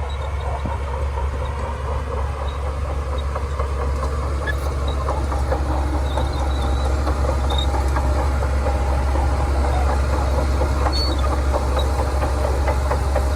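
Shantui crawler bulldozer working, its diesel engine running steadily with a dense, continuous clatter from the steel tracks.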